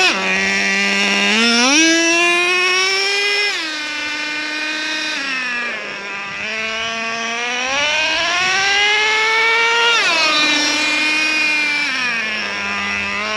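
Traxxas Revo 3.3's small two-stroke nitro engine running on a break-in, settling at a low idle and twice revving up, holding the higher speed for a couple of seconds before dropping back. The second rev climbs more slowly.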